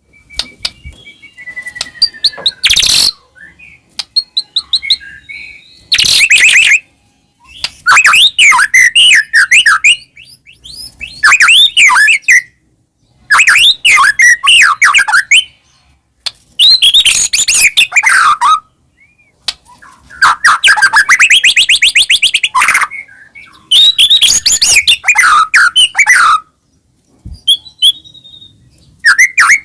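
White-rumped shama (murai batu) singing loudly in varied whistled phrases. The song comes in bouts of two to three seconds with short pauses between, after a few scattered chirps at the start.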